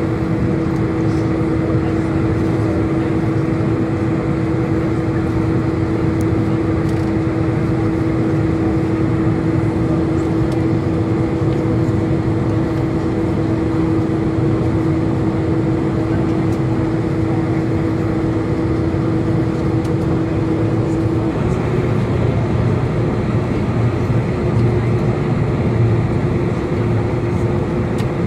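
Airliner cabin noise by the wing: the jet engines idling with a steady hum over a constant rush of air. A little over twenty seconds in the hum steps slightly higher in pitch as the aircraft begins to move.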